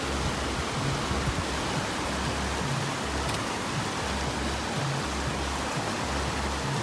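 Rushing mountain river water, with music playing underneath it, its low bass notes coming and going in short blocks.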